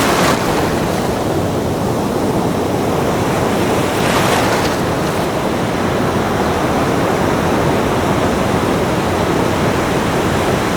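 Ocean waves breaking and washing onto a beach, a steady rush of surf with a louder wave surging just after the start and another about four seconds in.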